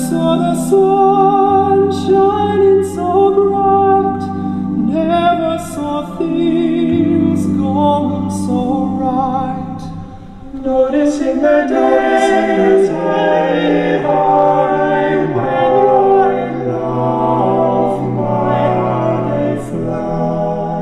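Recorded music played over large hi-fi loudspeakers: a vocal group singing in close harmony with vibrato, over long held low notes.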